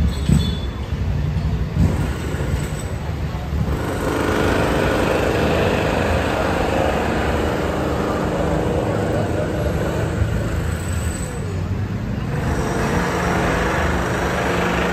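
Busy city street ambience. Low motor-vehicle rumble from traffic in the first couple of seconds gives way to a steady wash of street noise and pedestrian chatter.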